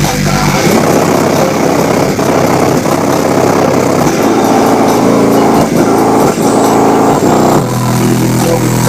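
Car subwoofer system playing loud, sustained bass with a buzzing, distorted edge. The bass note changes once, near the end.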